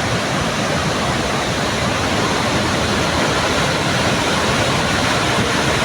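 Steady, loud rush of water falling at Victoria Falls, an even roar with no breaks.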